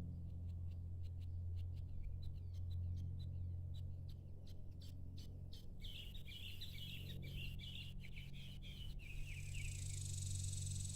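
Wild birds chirping in the evening: scattered short chirps, then a quick run of chirps about six seconds in that lasts around three seconds. A high steady hiss begins at about the same time, over a low steady hum.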